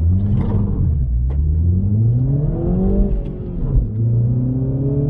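MINI Cooper S's 2.0-litre turbocharged four-cylinder engine accelerating hard from low speed, revs climbing steadily in first gear. The revs drop at an upshift about three seconds in, with a couple of sharp cracks around the change, then climb again in second gear.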